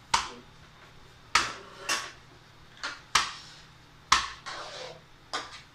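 A utensil knocking against a bowl while the cooking is mixed: about seven sharp clacks at uneven intervals, each with a short ring.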